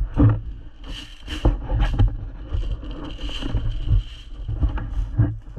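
Rustling and knocking of a moving player's gear against a body-worn camera, with footsteps, and a few sharp clicks about a second in.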